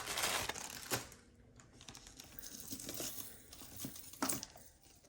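Plastic packaging crinkling as it is handled for about a second, then soft scattered clicks and taps of small items being moved, with one sharper click a little after four seconds in.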